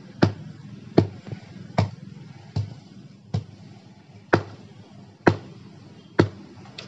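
A hand hammer striking pieces of stone: about nine sharp, even blows, a little under a second apart.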